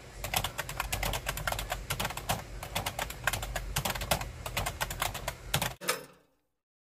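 Computer keyboard being typed on quickly, a rapid run of key clicks, as the same word is typed over and over to test whether keystrokes now register without lag. The typing stops suddenly with a final heavier knock about a second before the end.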